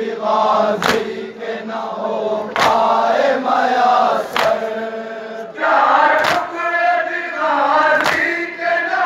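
A crowd of men chanting a nauha in unison, with a sharp collective slap of matam (chest-beating) landing in time about every second and three-quarters, five times.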